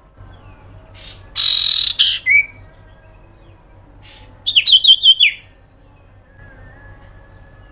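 Common iora (cipoh) calling: a harsh, buzzy rasp about one and a half seconds in, then a short rising note. Around four and a half seconds comes a rapid run of about six sharp notes that ends in a falling note.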